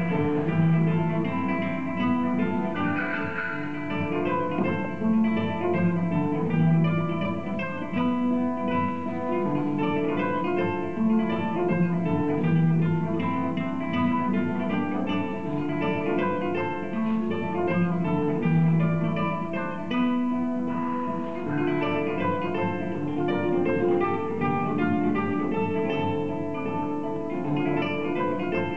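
Live acoustic guitar music in a flamenco style, a continuous run of plucked and strummed notes.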